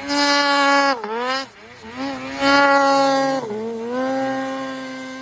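Snowmobile engine revved hard in repeated throttle pulls. Each pull holds at high revs, with short drops in pitch between them. The last long pull grows slowly fainter near the end.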